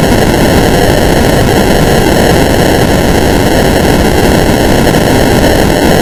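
Loud, harsh static-like noise from a heavily distorted audio effect, holding steady with no recognisable tune or voice left in it.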